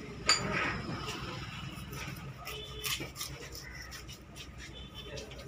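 A large fish knife chops through a horse mackerel on a wooden log block. One sharp chop with a brief metallic ring comes about a third of a second in, then quieter cutting and a smaller knock near the three-second mark, over faint background voices.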